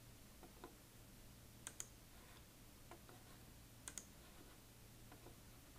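Faint computer mouse clicks over near silence, several in quick pairs.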